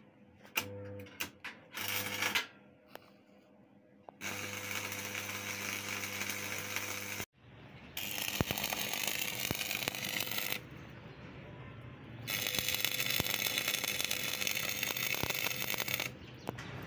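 Stick (arc) welding on steel plate: the arc crackles and hisses in several runs of a few seconds each, after a few short strikes near the start. A low hum runs under the early strikes and the first run.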